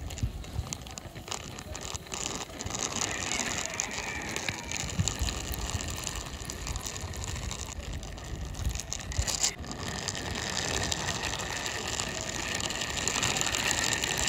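Plastic toy CNG autorickshaw rolled by hand along a rough concrete ledge: its small plastic wheels and gears give a continuous, rapid clicking rattle.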